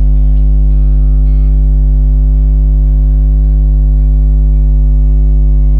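Background music holding steady, sustained tones.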